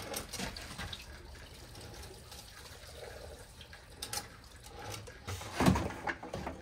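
Two-stroke fuel mix pouring from a leaf blower's tank through a funnel into a plastic gas can, a steady trickling stream. A louder knock near the end as the blower is set down.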